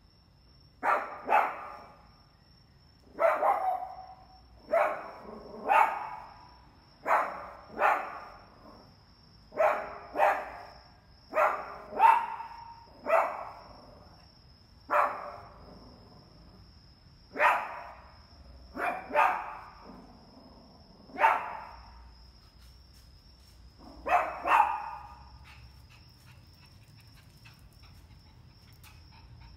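A small puppy barking over and over at a cat, short sharp barks often two in quick succession, with pauses of a second or two between them. The barking stops a few seconds before the end.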